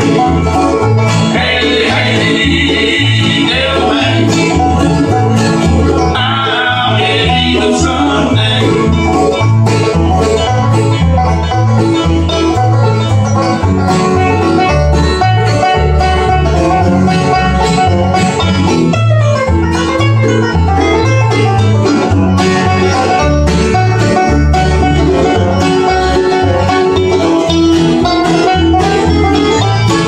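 Bluegrass band playing live: banjo, mandolin, acoustic guitar and upright bass, with the bass plucking a steady beat underneath.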